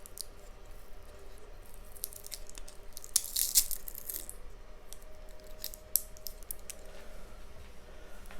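Small drone parts being handled and worked at by hand: scattered light clicks and scrapes, with a short rasping, tearing-like noise about three seconds in.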